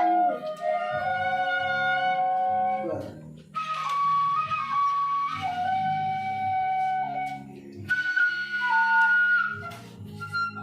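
Seruling emas, traditional bamboo flutes from Misool, played together: several held melody notes in parts over low sustained bass notes, in phrases with short breaks between them.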